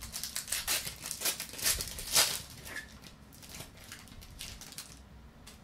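Plastic trading card pack wrapper crinkling as the pack is opened and the cards are pulled out: irregular crackles, the loudest about two seconds in, dying down after about three seconds.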